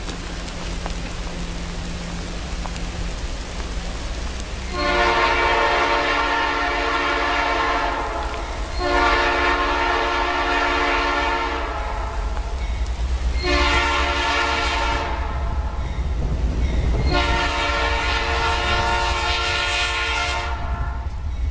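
Diesel locomotive air horn sounding a chord in four blasts, long, long, short, long: the standard signal for a grade crossing ahead. Under it, a low rumble from the approaching train grows louder near the end.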